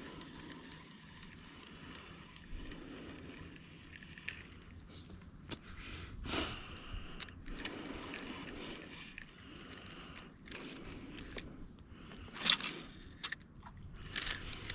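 Quiet sounds of fishing from a kayak: faint scrapes and water noise against the hull, small clicks, and two louder short rushes of noise about six and twelve and a half seconds in.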